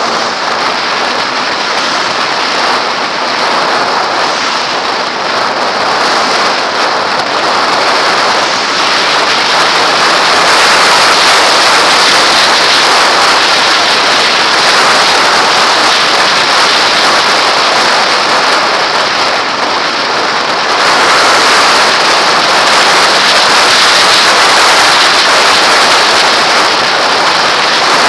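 Loud wind roar on a helmet-mounted camera as a Kawasaki ZX-6R sport bike rides at speed, its inline-four engine faintly under the rush. The roar grows louder about ten seconds in and again around twenty-one seconds in.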